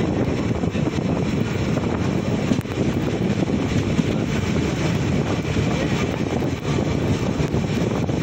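Indian Railways express train running at speed, heard from on board: a steady, loud rumble and rush of noise with a few faint clicks.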